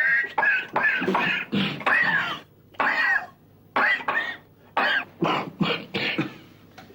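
A man's long coughing fit: about a dozen harsh coughs in quick, uneven succession, some of them voiced and hacking.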